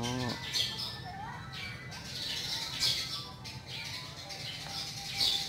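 Birds chirping and squawking.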